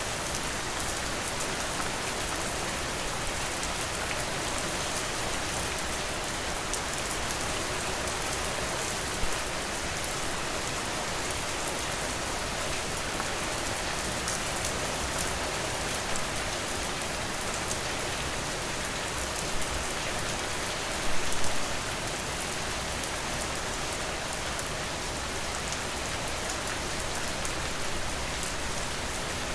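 Steady rain falling on a surface, an even hiss of drops, with a few brief sharp pops standing out, the loudest cluster about two-thirds of the way through.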